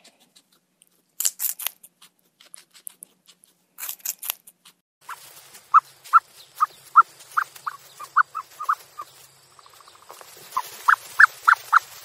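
Guinea pig rustling and chewing in dry hay: short bursts of crisp crunching in the first few seconds. From about five seconds in, a run of short, pitched animal calls, about two to three a second over outdoor hiss, breaking off near ten seconds and starting again.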